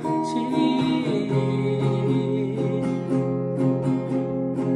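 Acoustic guitar playing, strummed chords carrying a melody.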